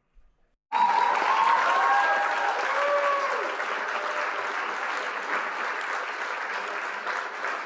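Crowd applauding, starting suddenly under a second in, with a few cheers in the first couple of seconds, then slowly dying down.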